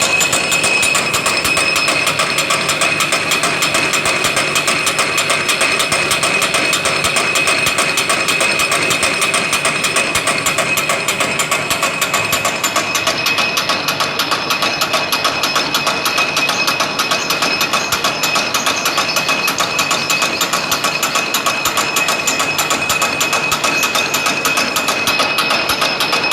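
Bakso meatball-forming machine with a spoon mechanism running, a rapid, steady mechanical clatter with a constant high whine over it.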